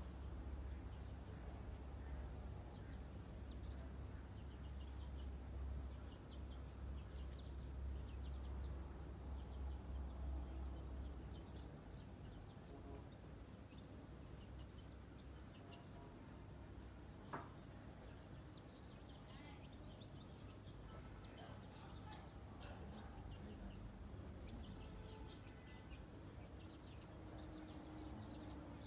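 Faint outdoor background: a steady high-pitched tone throughout, scattered faint chirps, and a low rumble that fades out about eleven seconds in. A single sharp click comes a little past halfway.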